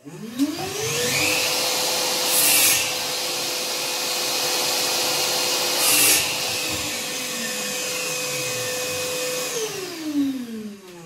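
Einhell wet-and-dry shop vacuum switched on: the motor spins up to a steady whine with a rush of air within the first second. There are two brief louder surges of suction about two and a half and six seconds in. It is switched off and winds down near the end.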